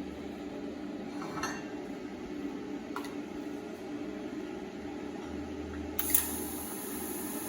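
TIG welder humming steadily, with a few light metal clinks; about six seconds in the arc strikes with a sharp crack and settles into a steady high hiss.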